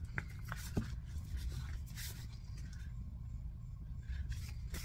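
Faint rustling and crinkling of reusable plastic zip-top snack bags being handled, with a few light clicks, over a steady low hum.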